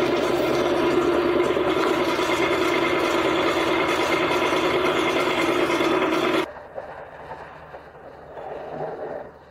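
Drill press at its lowest speed driving a 19 mm twist drill, ground normally for steel, into the 3 mm wall of a square steel tube: a loud steady whine with a fast rattle running through it, stopping suddenly about six seconds in. The rattle is the vibration typical of a large, conventionally ground drill in thin wall, which leaves an angular rather than round hole.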